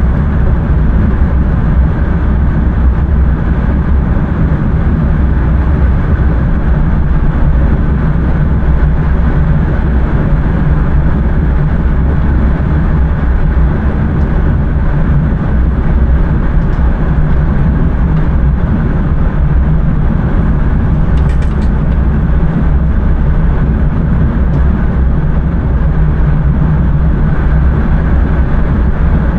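Intercity train running on the line, heard from inside the driver's cab: a loud, steady, deep rumble of the running gear and motors on the track.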